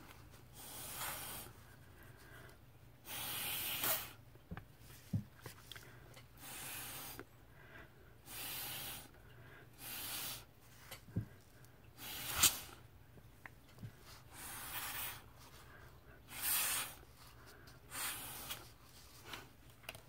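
A person blowing short puffs of air through a plastic drinking straw onto wet alcohol ink, about one breathy puff every second or two, pushing the ink across the surface. A few faint taps fall between the puffs.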